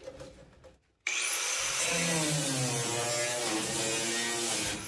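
Angle grinder starting up about a second in, its whine rising and then holding as the disc cuts into rusted sheet steel, throwing sparks. The pitch dips and wavers under load. Near the end it stops briefly and spins up again.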